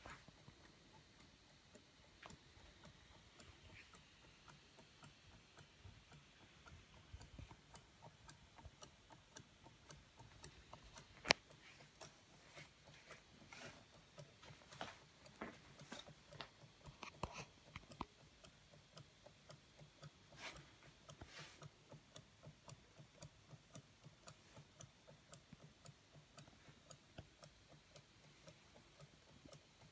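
Large Haynes Stirling hot-air engine running, its crank and linkage giving a soft, steady ticking with a few louder clicks among the ticks, over a faint low hum.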